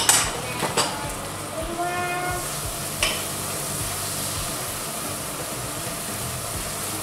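Spice paste with bay leaves and star anise sizzling in oil in a wok while a wooden spatula stirs it, knocking against the pan a few times in the first three seconds. From about three seconds in, a steady frying hiss.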